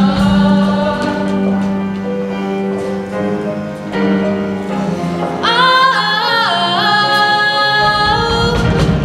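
Show choir singing with instrumental accompaniment over a steady low held note. About halfway through, a single high voice holds a long wavering note that dips once in pitch.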